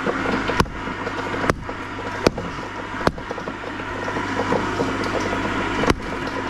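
Hatchet chopping frozen fish scraps on a wooden stump: five sharp chops, four of them in the first three seconds and one near the end, over the steady hum of a garden shredder's motor running.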